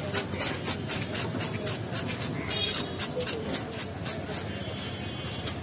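Knife scraping scales off a large whole fish: quick rasping strokes, about four or five a second, over a steady low background din.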